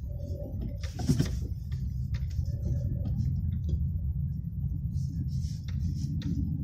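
Car driving slowly over snow, heard from inside the cabin: a steady low rumble of engine and tyres, with scattered light clicks and crunches.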